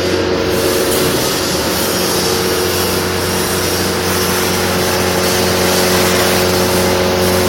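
Multi-Vac industrial vacuum machine running steadily at light vacuum: a steady electric motor and blower hum under a loud rush of air through the 4-inch hose and wand, growing slightly louder as the wand is put to a pile of hay.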